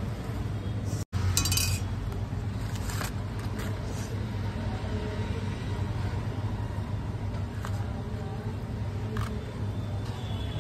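Plastic cling film crinkling briefly as it is pulled back from a plate. Then a few light clinks of a steel spatula against the plate as it lifts the rolls, over a steady low hum.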